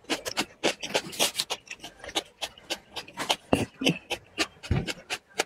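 Close-miked chewing of a mouthful of spicy food: quick wet mouth clicks and smacks, about four or five a second.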